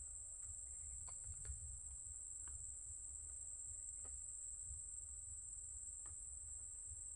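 A steady high-pitched insect chorus, such as crickets, over a low rumble, with a few faint ticks.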